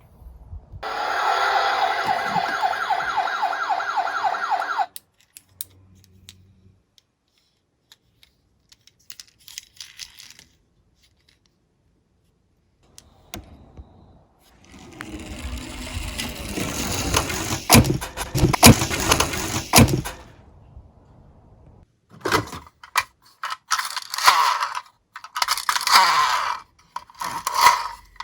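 Electronic siren of a battery-powered toy emergency vehicle, a rapid warble lasting about four seconds, followed later by the rumble and clatter of toy cars rolling down a slope, with scattered clicks.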